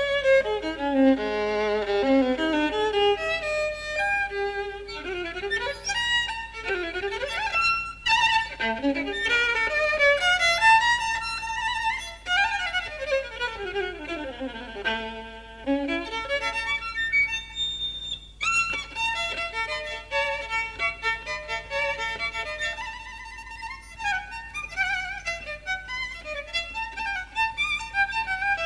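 Jazz violin played live in fast runs that sweep up and down the range, heard from a cassette tape recording with a steady low hum underneath.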